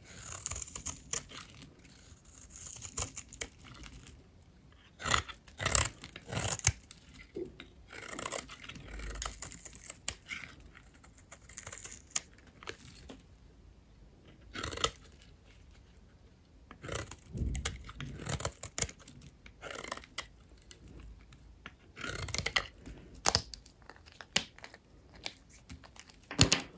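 A blade cutting through dry bars of soap: crisp crunching and scraping strokes as the hard soap cracks and crumbles, coming in irregular clusters with short pauses between them.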